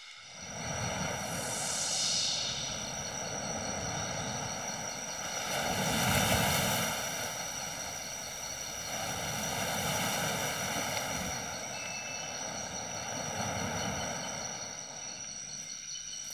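Surf washing onto a sandy beach, a broad rushing noise that swells and fades about every four seconds as each wave breaks, over a steady high-pitched drone.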